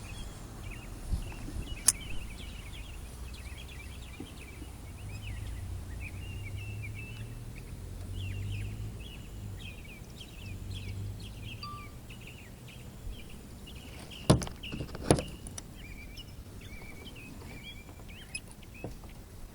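Outdoor ambience of birds chirping in quick short calls, over a low rumble that swells in the middle. A few sharp clicks cut through, the loudest two close together about three-quarters of the way in.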